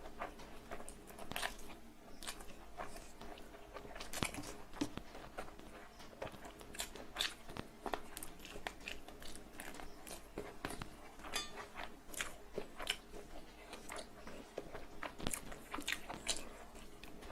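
Close-up mouth sounds of a person eating rice and chicken curry: wet chewing with many irregular smacks and clicks.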